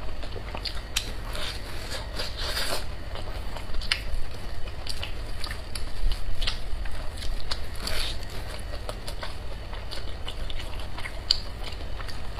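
A person chewing and biting into a pan-fried Chinese chive pocket (jiucai hezi) filled with chives, egg and glass noodles, giving irregular crunching and wet mouth clicks.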